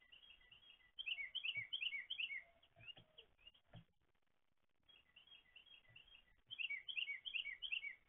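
A songbird singing two quick bursts of rapid, high, repeated chirping notes a few seconds apart, with a few light taps in between.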